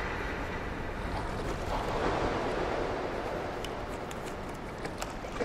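Open sea at the surface: waves lapping and wind rushing, with a few faint ticks.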